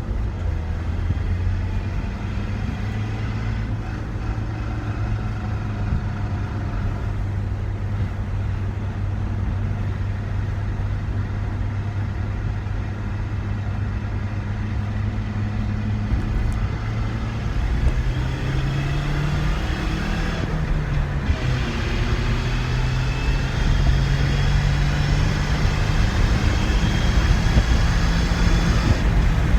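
Ford Ranger pickup under way, heard from inside the cab with the rear window out: a steady low drivetrain and road drone. A tone climbs in pitch about two-thirds of the way through, and it gets a little louder near the end. The owner calls it a noisy drivetrain and suspects the input bearing on the rear differential.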